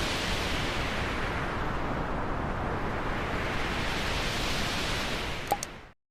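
Cinematic transition sound effect: a steady rush of filtered noise whose brightness sweeps down and back up, with a short click about five and a half seconds in, then an abrupt cutoff to silence.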